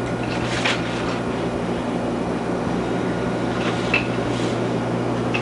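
Steady low hum over background noise, with a couple of faint clicks about a second in and near the end.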